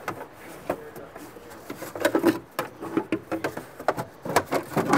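A hard plastic battery cover being worked into place over the battery. It gives irregular knocks, clicks and scraping of plastic against plastic trim.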